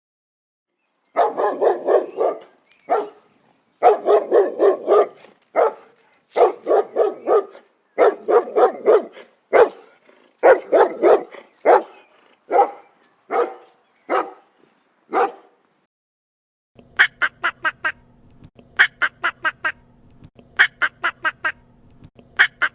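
A dog barking in rapid bursts of several quick barks each. About three-quarters of the way through it stops, and a different call takes over: quick runs of duck-like quacks over a steady low hum.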